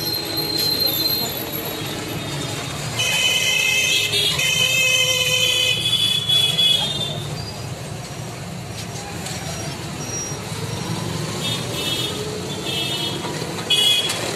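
Busy street traffic heard from inside an open e-rickshaw: a steady din of engines and road noise, with a vehicle horn sounding for several seconds from about three seconds in and shorter horn toots near the end.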